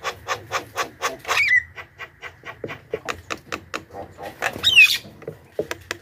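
Javan myna singing: a rapid run of harsh, clicking chatter notes, about five a second, broken by a short whistle and, later on, a loud falling whistle.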